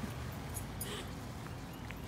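Low steady outdoor background rumble with a few faint ticks and scuffs.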